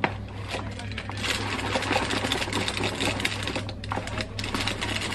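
A small upturned bowl swirled quickly around a soft, freshly baked cookie on a parchment-lined metal baking tray, rattling and scraping against the paper and the tray in a fast, steady chatter of small clicks. This is rounding off the cookie's edges.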